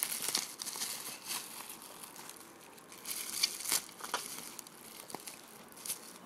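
Crinkling and rustling of plastic packaging as a pack of trading cards is handled and opened: scattered short crackles, loudest at the start and fainter after.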